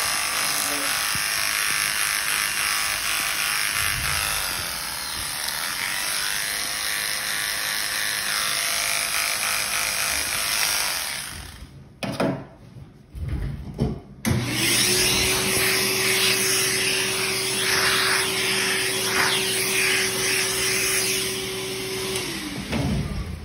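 Electric pet hair clippers running and cutting through a dog's belly fur, a steady buzz with hair-cutting noise. The sound breaks off around twelve seconds in, then the clippers hum steadily again from about fourteen seconds and wind down as they are switched off near the end.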